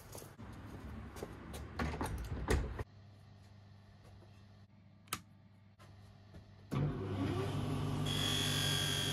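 Footsteps first, then about seven seconds in a vintage Viceroy bench buffing machine's electric motor is switched on and runs up to speed, a steady hum with a high whine.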